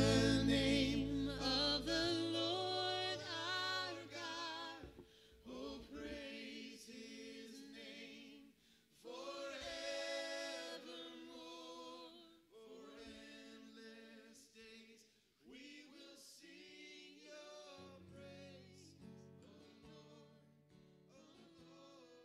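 Live worship band with guitars, keyboard and singers playing and singing a slow song, the music fading out gradually to near silence.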